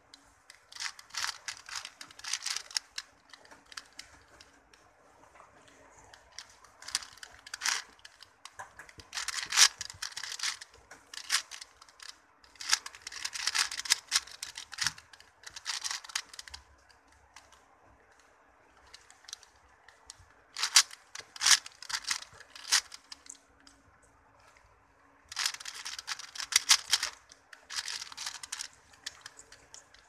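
A 4x4 Rubik's cube being turned by hand while its edges are paired: quick runs of plastic clicks and clacks from the turning layers, in bursts of a second or two with short pauses between.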